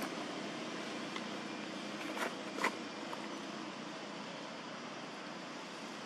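Steady outdoor background hiss, with two short crackles a little over two seconds in and a few fainter clicks.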